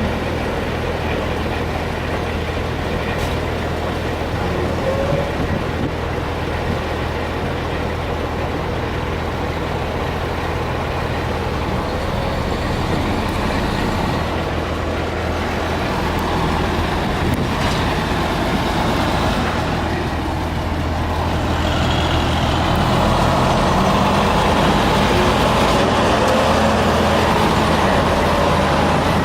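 Heavy dump truck diesel engines running steadily with a constant low hum, growing a little louder in the last third.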